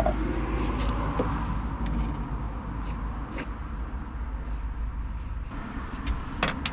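An aerosol spray-paint can giving a few short hisses as a little paint is dabbed onto a freshly drilled steel bolt hole, over a steady low rumble.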